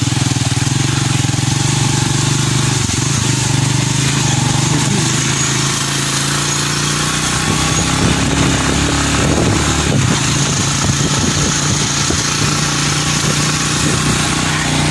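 Engine of an open-sided passenger vehicle running steadily as it drives, heard from among the passengers on board, with a constant rush of road and wind noise.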